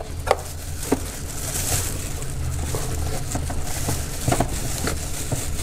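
Light handling noise under the hood: a plastic bag rustling and a few short clicks of a flathead screwdriver working a hose clamp loose on the intake hose, over a steady low hum.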